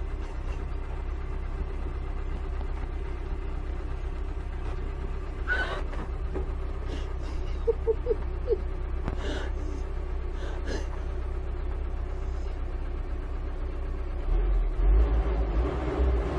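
Wheel loader's diesel engine running steadily while the machine sits tipped forward on its bucket, with a few faint knocks; the low rumble grows louder near the end.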